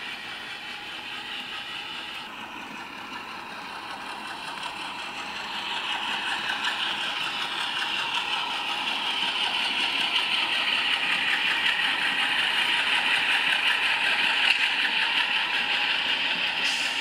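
Sound-equipped scale model diesel locomotive running, its engine sound coming from the onboard sound system, with wheels rattling over the track. It grows louder from about five seconds in as the train approaches.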